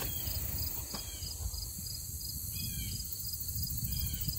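Outdoor ambience of insects chirping in a steady, rapid high-pitched pulse, with a few short falling chirps over it and a low, uneven rumble underneath.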